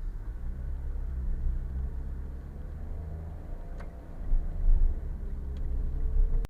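Car driving, its engine and road noise making a steady low rumble as picked up by a dashcam, swelling louder a little past the middle, with two faint ticks.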